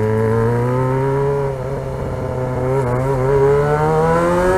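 Yamaha XJ6's inline-four engine, with a straight-pipe exhaust, accelerating. The pitch climbs steadily, eases off briefly about a second and a half in, then rises again.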